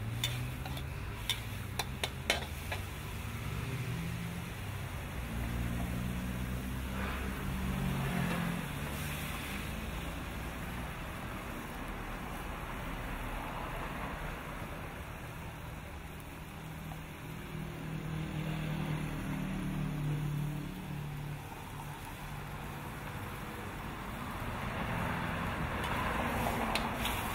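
Squid and shrimp frying in a steel wok: a steady sizzle, with a few sharp clicks of the metal spatula striking the pan in the first couple of seconds, over a low steady rumble. The sizzle grows louder near the end.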